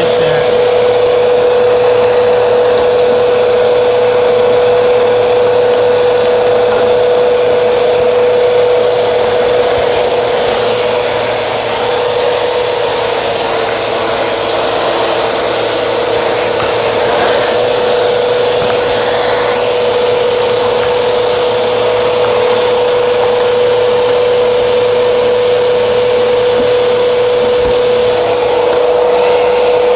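Household vacuum cleaner running steadily with a constant whine, sucking pet hair and dust out from under a refrigerator, where it clogs the condenser coil.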